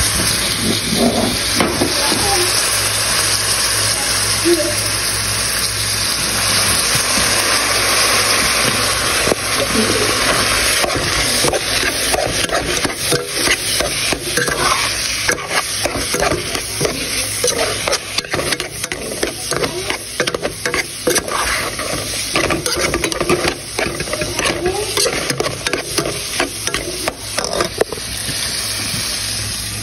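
Seasoned ground beef sizzling in a metal pot while a metal spoon stirs it, scraping and clinking against the pot. The clinks come thick and fast in the second half.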